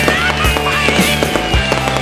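Background music with a steady drum beat, about two beats a second, over low held bass notes.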